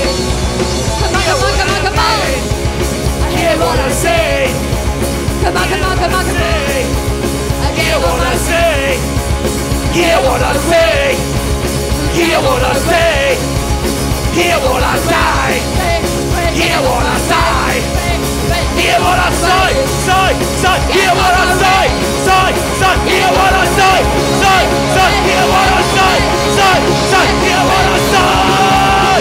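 Punk rock band playing live, with electric guitar, bass guitar and drums, and a singer's voice over the band.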